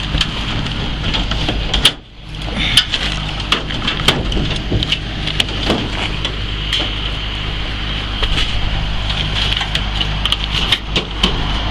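Steady low machinery hum under scattered irregular knocks, taps and clanks of hand work. The whole sound cuts out briefly about two seconds in.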